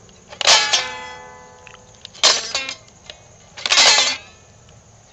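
Pink toy electric guitar playing recorded guitar strums as a mini pig's hoof presses its buttons. Three separate strummed chords, about a second and a half apart, each ringing out and fading.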